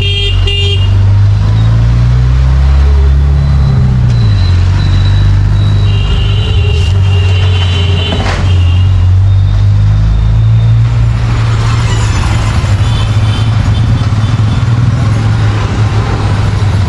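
Street traffic: a vehicle engine running close by, its pitch rising and then falling in the first few seconds, with horns honking several times.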